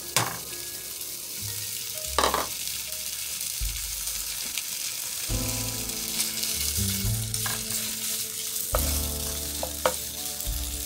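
Turkey bacon sizzling in hot olive oil in a skillet, a steady hiss, with a few sharp knocks against the pan as the slices are tipped in and stirred with a wooden spatula.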